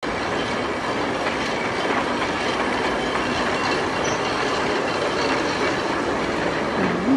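Steady, dense rattling mechanical noise of workshop machinery running.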